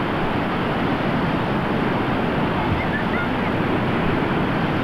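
Steady rushing noise of wind buffeting the camcorder microphone, mixed with the wash of surf breaking on the beach.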